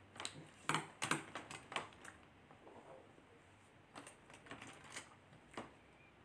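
A run of light, sharp clicks and taps, a metal spoon knocking against a container and the pan while salt is scooped. The clicks come in two bunches: one in the first couple of seconds and another between about four and five and a half seconds in.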